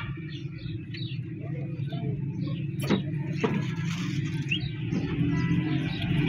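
Street background of a steady low vehicle hum that grows a little louder near the end, with small birds chirping now and then and two sharp clicks about halfway through.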